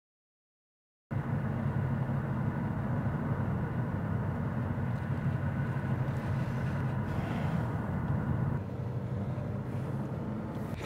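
Silence for about a second, then steady road and engine noise heard inside a moving car's cabin, a little quieter near the end.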